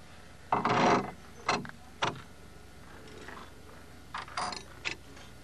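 Metal hardware being handled and worked by hand on a wooden frame with a steel bracket and pin: a loud half-second clatter about half a second in, then a few sharp clicks and knocks.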